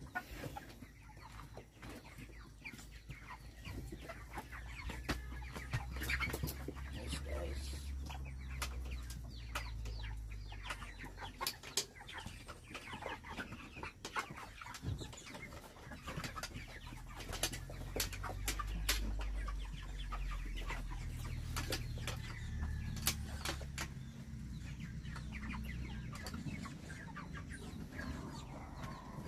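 A flock of chickens clucking, with many scattered clicks and knocks and a low rumble underneath.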